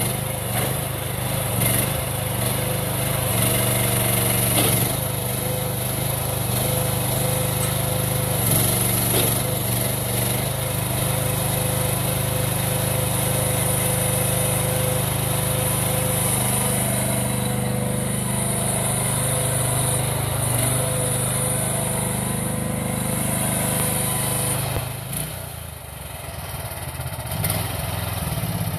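A small engine on an AgroTK QH12 mini excavator running steadily while the boom, arm and bucket are worked. The engine note drops about 25 seconds in, then picks up again near the end.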